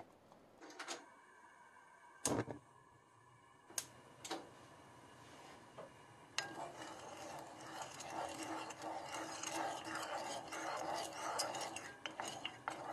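A spatula stirring brown sugar and water in a ceramic-lined saucepan on a gas burner: continuous scraping and swishing against the pan, setting in about six seconds in. Before that come a few separate knocks and clicks.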